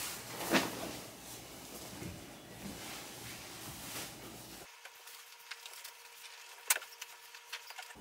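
Sheets and bedding being handled and spread over a mattress: irregular fabric rustling with a few knocks, the loudest about half a second in and a sharp click near seven seconds.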